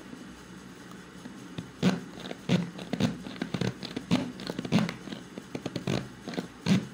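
Push-down plastic hand chopper being pumped by hand: a sharp plastic knock on each press of the plunger, about two a second, starting about two seconds in. The chopper is jamming; the owner blames the inner lock that drives the blade for not seating properly, so the blade barely turns.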